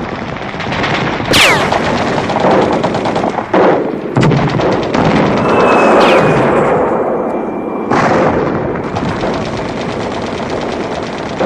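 Rapid automatic gunfire, long sustained bursts of closely spaced shots, with a few falling whistling tones.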